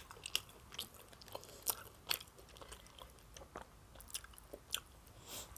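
Close-miked chewing of a mouthful of salad: soft, wet mouth clicks and smacks at irregular intervals.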